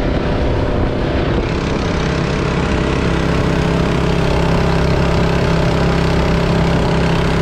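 Small gasoline engine of a portable water pump running steadily on the boat's deck, its pitch settling about two seconds in, over the rush of the boat's wake.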